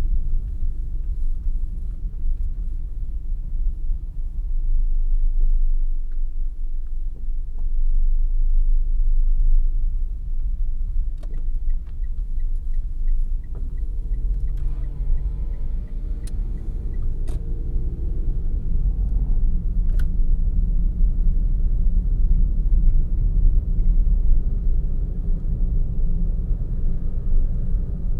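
A car driving along a road, heard from inside the cabin: a steady low rumble of road and engine noise. For several seconds around the middle, a faint, evenly spaced ticking runs over it.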